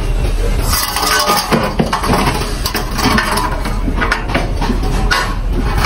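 Hand tools clinking and scraping on steel bar stock: many short metallic knocks over a constant loud background din.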